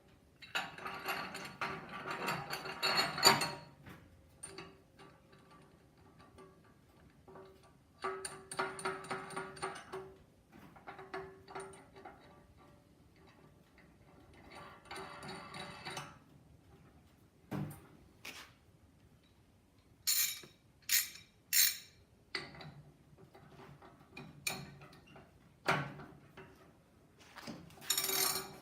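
Intermittent metal scraping and clinking as a threaded steel flange and a flange socket tool are handled and turned onto pipe threads with a 3/4-inch-drive ratchet, with a run of sharp clicks in the second half.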